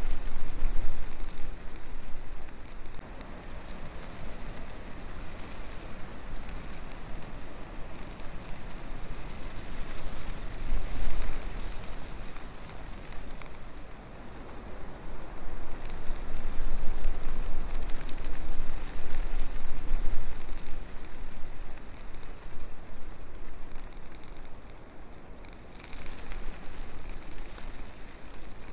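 Air rushing over the microphone of a quadcopter in flight: a steady hiss with a low rumble that swells and fades every few seconds.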